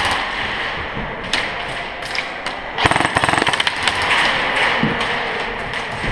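Airsoft guns firing in full-auto bursts, a fast rattle of shots. One burst ends just after the start and another comes about three seconds in, with scattered single shots between.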